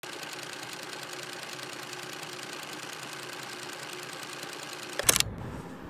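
A steady, rapid, even mechanical rattle, which cuts off with a loud, short burst of noise about five seconds in.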